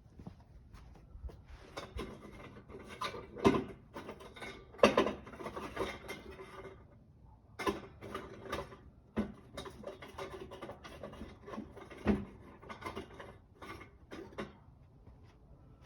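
Irregular scratching and crackling with several sharp clicks and pops, made while a stick of fatwood is lit with a double-flame butane torch lighter.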